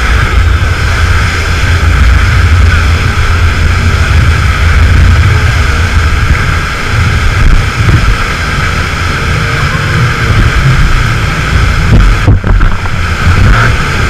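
Speedboat running fast: a steady engine drone mixed with heavy wind buffeting on the microphone and the rush of spray. The high end briefly drops out near the end.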